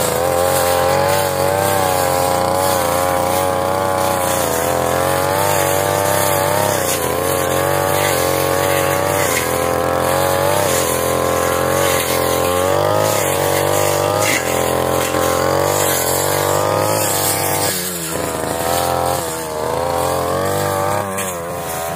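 Brush cutter engine running hard and continuously, its pitch wavering up and down as the blade works through the grass. The speed sags and picks up again near the end.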